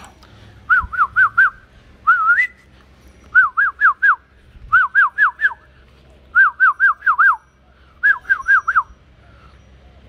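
A person whistling close to the microphone: about six short phrases, most of four quick notes that each swoop up and then drop sharply, one a single rising whistle, with brief gaps between phrases.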